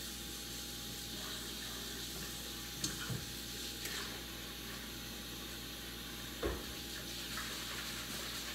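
Kitchen tap running steadily into a sink, with a few light clicks and one louder knock about six and a half seconds in.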